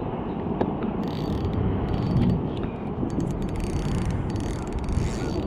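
Fishing reel being cranked to bring in a hooked catfish, its gears clicking rapidly in runs, over a steady low rumble.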